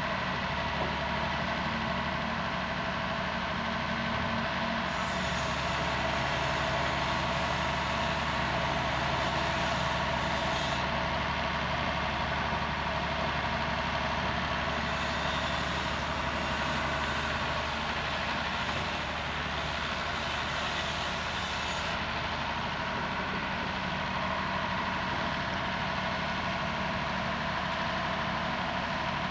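Hy-Mac 610 wheeled excavator's diesel engine running steadily while it works, its note rising and growing brighter in two spells, about five seconds in and again about fifteen seconds in, before settling back.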